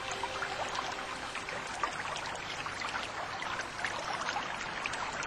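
Rushing, splashing water: a steady wash of water noise with many small splashes through it.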